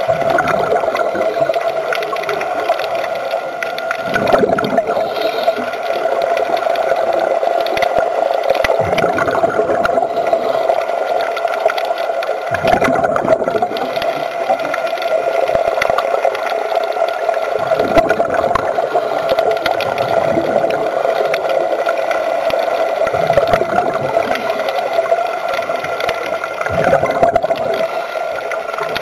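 Underwater sound heard through a camera housing: a steady hum with a diver's exhaled regulator bubbles gurgling out in a short burst every four or five seconds.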